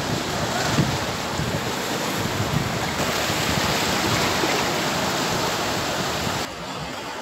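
Wind buffeting the microphone over the wash of surf, a steady rushing noise that drops suddenly in level near the end.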